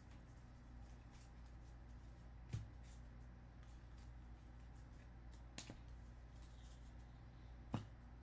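Near silence over a steady low hum, with a few soft clicks and rustles from a stack of baseball trading cards being flipped through by hand. The loudest click comes near the end, as the stack is set down on the table.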